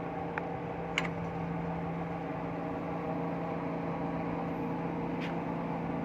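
Steady hum of running machinery, with a few light clicks about a second in and near the end as the expansion valve is pushed into its housing by hand.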